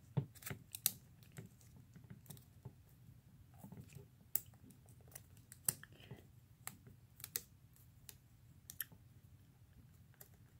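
Aluminium foil crinkling and clicking irregularly and faintly as fingers press and wrap it around a plastic model horse's head.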